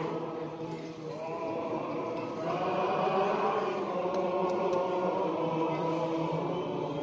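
Greek Orthodox Byzantine chant: several voices sing slow, held notes of a church melody over a steady low drone.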